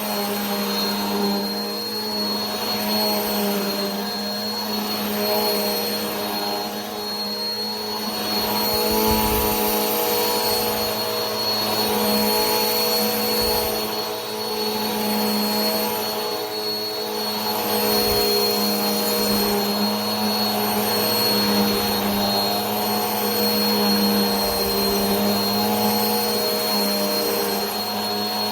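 Vacuum cleaner running continuously: a steady motor hum and whine with a constant rush of airflow, swelling slightly in loudness now and then.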